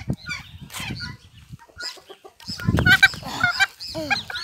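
Domestic rooster giving short squawking clucks as it is caught and held by hand, with bumps from the handling.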